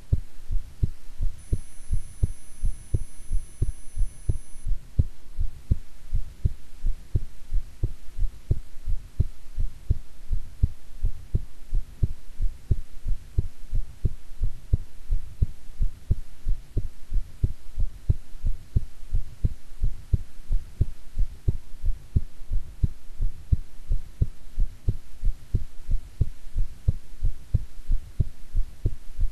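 A woman's heartbeat heard close up: deep beats in a steady, even rhythm over a faint low hum.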